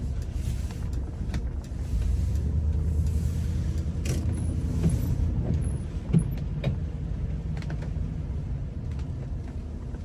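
Car engine and road noise heard from inside the cabin while driving slowly, a steady low rumble that grows louder about two seconds in. A sharp knock comes about six seconds in.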